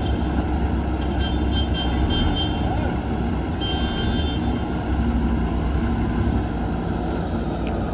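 Diesel engine of a JCB backhoe loader running steadily as its rear bucket digs into a soil pile, with a dump truck's diesel idling alongside. The sound is steady and low.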